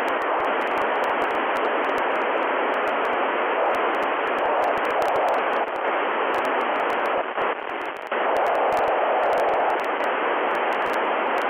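Steady FM radio static, a loud hiss, from a transceiver tuned to the SO-50 satellite downlink, with no voice getting through. It dips briefly twice, about six and eight seconds in.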